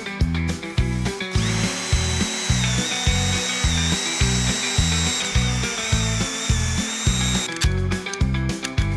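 Power drill running for about six seconds, starting a little over a second in, with a steady high whine that wavers slightly in pitch. Background music with a steady beat plays under it.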